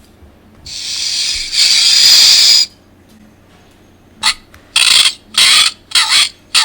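Animal sound effects played from a children's sound book's small speaker: a snake's hiss lasting about two seconds and growing louder partway through, then after a pause about five short, harsh, squawk-like bird calls.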